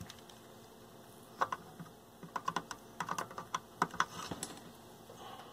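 Flush cutters snipping the excess leads of freshly soldered capacitors on a circuit board: a series of sharp, irregular clicks, about a dozen, starting about a second and a half in.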